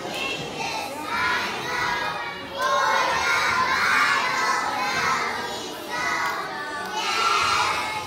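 A chorus of young children's voices, many at once, singing out together.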